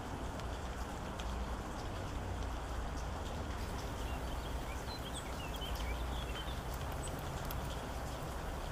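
Steady rain falling, with scattered sharp drop ticks over a low rumble. A short flurry of small bird chirps comes about five seconds in.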